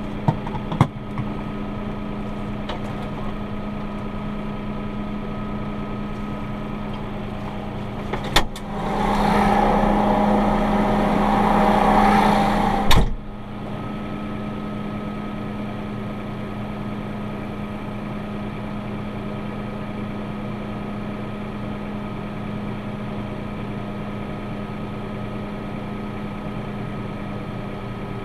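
Tractor engine running steadily, heard from inside the cab, with a few sharp clicks near the start. About eight seconds in there is a click, then the engine sound grows louder and fuller for about four seconds and ends in a sharp bang, after which the steady hum carries on.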